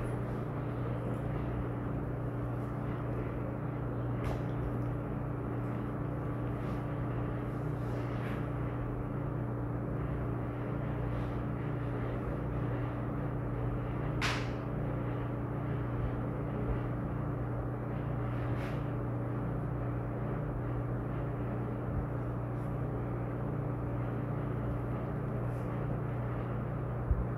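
Steady low hum of room background noise, with a few faint short clicks, the sharpest about halfway through.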